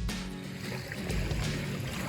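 Background music with sustained low notes, over a steady noisy hiss that comes in at the start.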